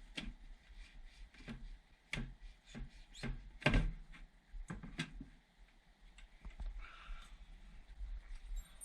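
A run of sharp knocks and clunks, about eight in the first five seconds, the loudest about three and a half seconds in, followed by quieter handling noise. These are the sounds of metal furnace parts and tools being handled while the inducer assembly is taken apart.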